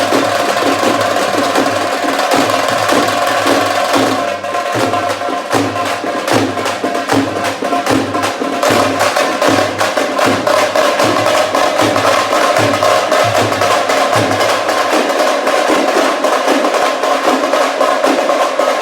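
Drums played in a fast, continuous rhythm of many rapid strokes over a steady held tone. Just after a short dip about four seconds in, the strokes become denser.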